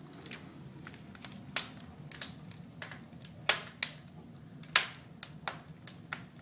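Wood fire crackling in a brick fireplace: irregular sharp pops, two louder ones around the middle, over a low steady hum.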